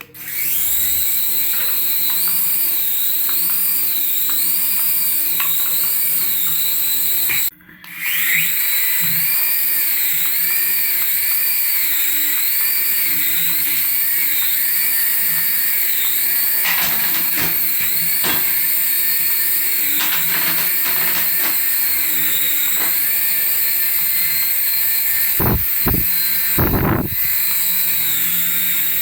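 Small electric motor of a toy radio-control aircraft running at speed: a high whine that wavers up and down about once a second. It cuts out for a moment about seven seconds in, then starts again, with a few knocks near the end.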